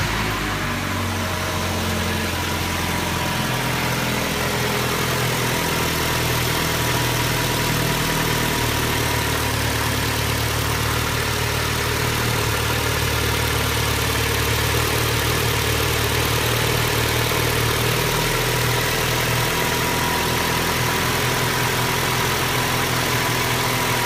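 2012 Ford Escape's 2.5-litre four-cylinder engine idling steadily, cold, just after start-up. The owner traces this engine's tapping-knocking noise to a cracked cylinder block between the cylinders, not to the valve train.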